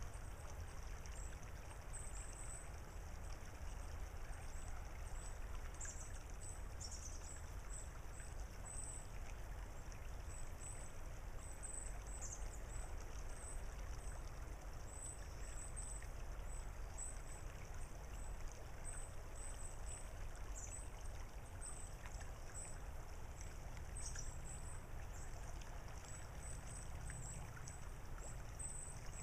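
A shallow creek babbling over pebbles, under a steady low rumble, with frequent short, high bird chirps throughout.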